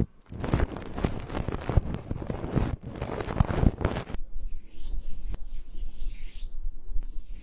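Close-up scratchy rubbing of an ASMR trigger tool on a binaural microphone, dense with fine crackles. About four seconds in it changes abruptly to a softer, airy brushing sweep.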